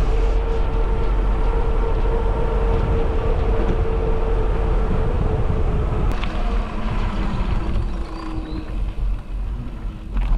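Wind buffeting the microphone while riding a bicycle, a loud steady rumble with road noise, and a steady hum that stops about six seconds in.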